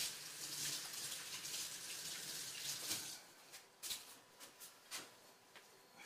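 Water running from a tap, stopping about halfway through, followed by a few light clicks and knocks.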